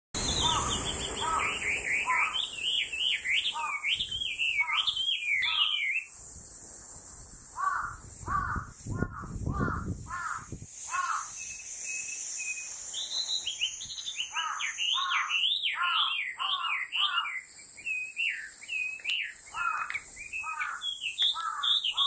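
Chinese hwamei singing: loud, rapid runs of varied whistled notes that slide up and down, delivered in bouts with short pauses between them. A steady high-pitched buzz runs underneath.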